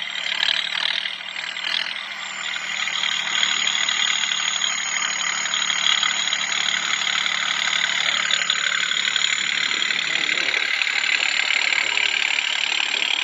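Diesel tractor engine running steadily and hard under load, its rear tyres dug into sand.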